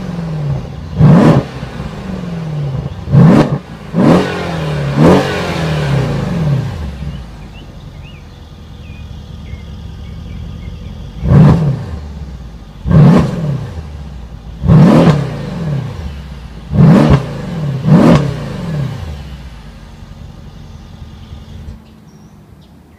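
Mercedes-Benz E63 AMG S's 5.5-litre biturbo V8 revved at a standstill and heard from behind its quad exhaust tips. It gives four quick throttle blips, idles for a few seconds, then gives five more blips, each falling back to a steady idle.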